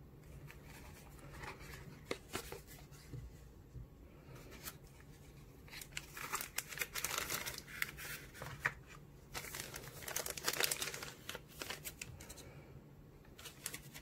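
Zippo lighter packaging handled by hand: a cardboard box opened and a plastic bag crinkled, with scattered clicks and taps. The crinkling comes in two louder spells, about six to eight seconds in and again around ten to eleven seconds.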